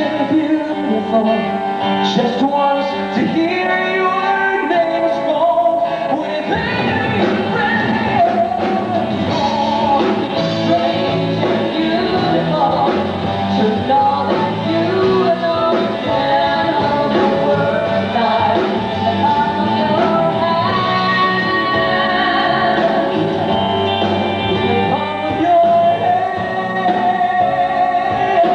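Live rock band accompanying a male and a female singer in a duet. The bass end fills out about six seconds in.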